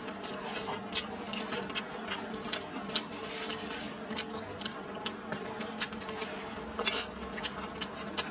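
Eating sounds: wooden chopsticks clicking and scraping against a stainless steel bowl of rice and vegetables, with mouth sounds of chewing. Irregular sharp clicks, several a second at times, over a steady low hum.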